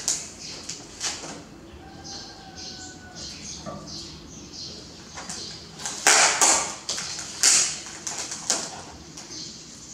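Plastic bottles and snack packaging being handled and set down on a table: a run of crinkles, clicks and light knocks, loudest about six to seven and a half seconds in.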